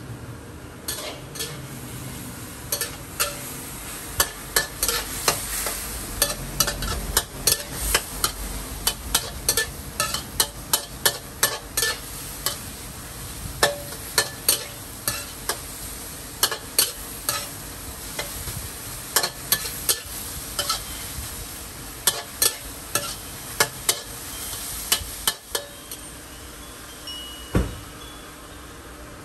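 Stir-frying in a wok: a metal utensil strikes and scrapes the pan in quick, uneven strokes, about two a second, over a steady sizzle. The strokes stop about four seconds before the end, leaving the sizzle and a single knock.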